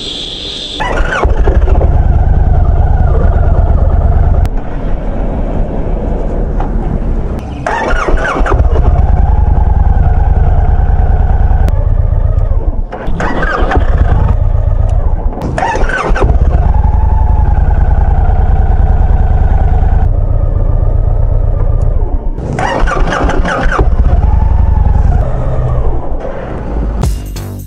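Victory Cross Country motorcycle's V-twin engine starting about a second in, then idling with the throttle blipped several times, each rev a short burst over the steady idle.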